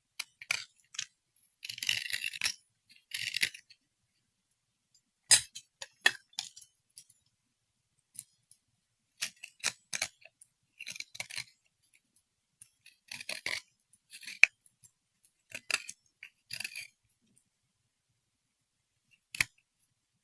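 Small hard objects being handled and set down: scattered clicks and clinks, with a few short rustling scrapes in between.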